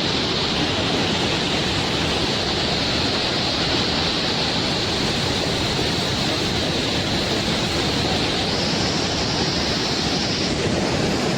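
Waterfall pouring hard, heard close to its base as a steady, unbroken rush of water.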